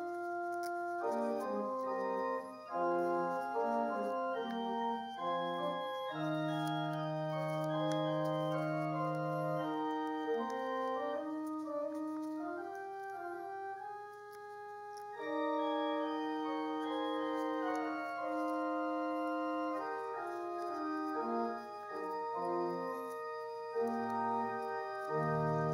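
Church organ playing slow music of sustained chords with a moving upper line; a low note is held for several seconds around the middle, and a new low note comes in near the end.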